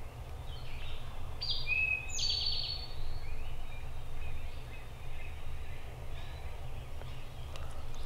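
Songbirds singing: high whistled phrases and a quick trill about two seconds in, with fainter calls later, over a steady low rumble.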